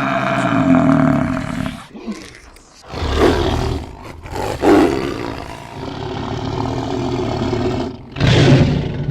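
A big cat roaring, several deep roars one after another with short breaks between them.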